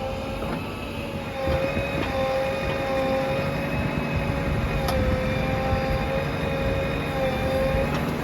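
Heavy diesel machinery running steadily: a low engine rumble with a whine that wavers slightly in pitch, and a single sharp click about five seconds in.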